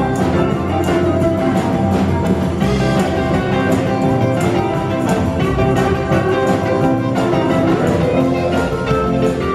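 Live rock and roll band playing: two electric guitars over an upright double bass and a drum kit keeping a steady beat.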